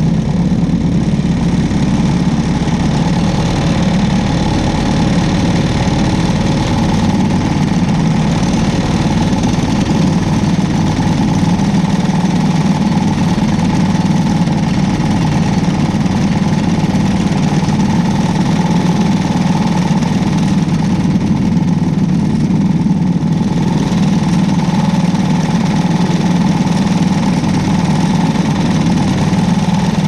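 Cadet-class winged sprint car engine idling steadily in the pits, with no revving.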